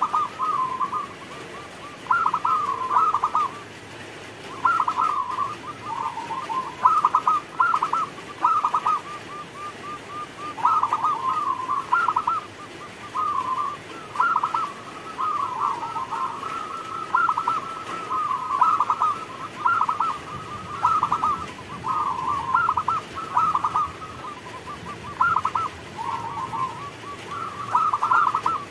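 Zebra dove (perkutut) cooing: a long run of short rolling phrases of quick staccato coos, one after another every second or two.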